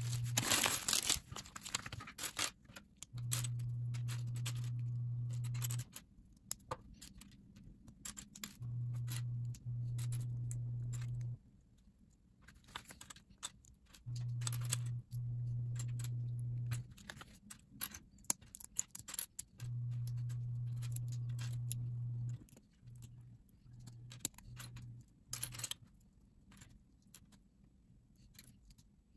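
Small plastic LEGO pieces clattering and clicking as they are picked through by hand and pressed together. A steady low hum starts and stops several times, each stretch lasting about two to three seconds.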